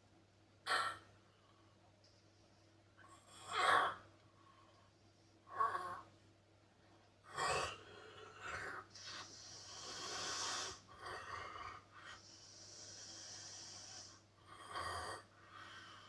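A man snoring heavily in his sleep. About five loud, ragged snores come at uneven gaps, with long wheezy, hissing breaths in between.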